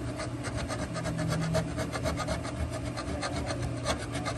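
Flat hand file rasping in quick, repeated strokes against the cast aluminum of an intake manifold, filing down a flat spot around a newly drilled sensor port.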